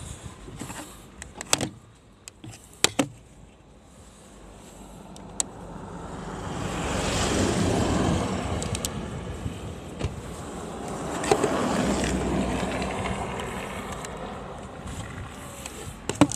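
Škoda Yeti engine running in cold weather just after being jump-started from a portable jump starter, its sound swelling and fading twice, with a few sharp clicks in the first seconds.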